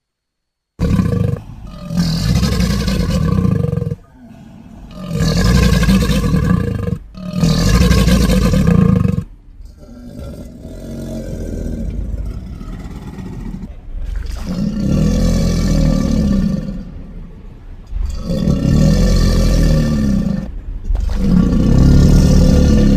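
Crocodile growls and roars used for a cartoon Nile crocodile, built from crocodilian recordings: a run of long, deep calls of two to three seconds each with short gaps, and a quieter, drawn-out growl in the middle.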